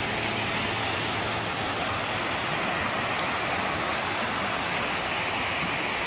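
Steady rush of a rocky mountain stream, water running over boulders.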